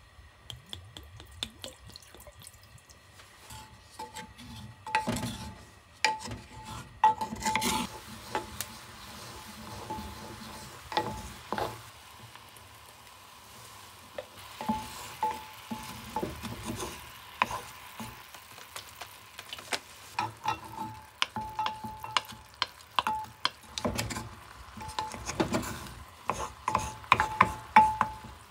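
Wooden spatula stirring and scraping gravy in a cast-iron mini Dutch oven while the pan juices sizzle. The spatula scrapes and knocks against the iron again and again, busiest a few seconds in and again near the end, as potato starch thickens the juices.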